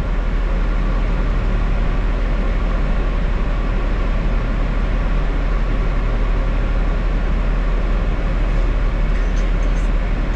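New York City subway train running, heard from inside a car: a steady, loud rumble, with a few faint high squeaks near the end.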